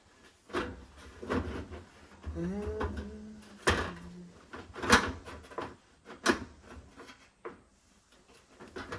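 Aluminium sheet-metal tank pieces being handled and fitted together by hand: a series of separate knocks and clanks, the sharpest about five and six seconds in, with a short rising squeak about two and a half seconds in.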